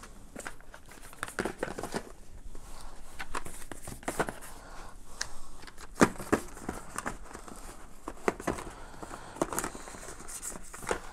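Cardboard boxes and packaging rustling and knocking as small product boxes are packed into a cardboard shipping box, with scattered short knocks, the sharpest about six seconds in.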